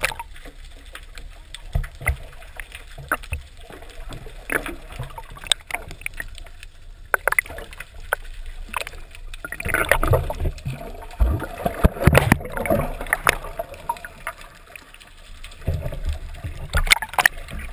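Muffled water sloshing and gurgling heard through a submerged camera, with irregular knocks scattered through it and a busier patch about ten seconds in.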